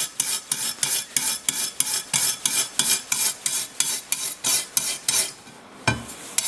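Steel wire brush scrubbing hardened resin off a circular saw blade's teeth in quick back-and-forth strokes, about three to four a second. The strokes pause briefly near the end, and a single knock sounds before they start again.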